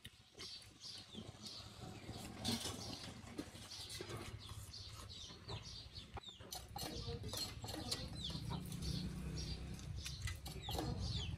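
Chickens clucking and chirping in short, falling calls, over wet crunching and chewing of watermelon. A low rumble grows in the second half.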